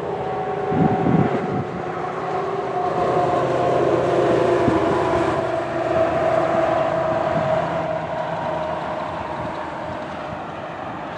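Loud vehicle or machine drone made of several held tones that drift slightly in pitch, cut off abruptly near the end.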